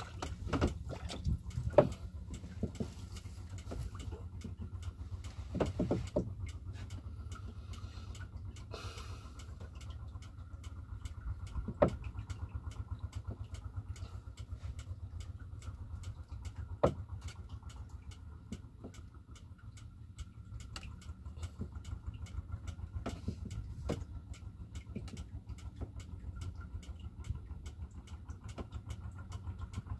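Small boat engine idling with a steady low rumble and an even ticking. A few sharp knocks stand out.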